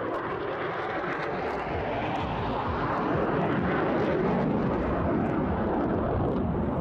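Jet noise from a Hellenic Air Force F-16 Block 52+ fighter flying a display manoeuvre in afterburner: a dense, rough rushing sound that swells over the first few seconds and holds.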